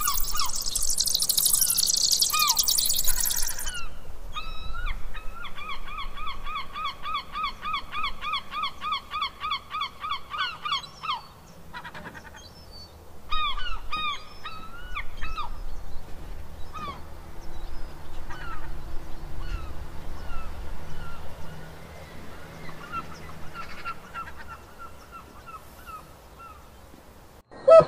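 Bird calls, added as sound effects: a fast run of repeated calls, about four a second, for several seconds, followed by scattered single calls that sweep down and up in pitch. A loud hiss in the first few seconds.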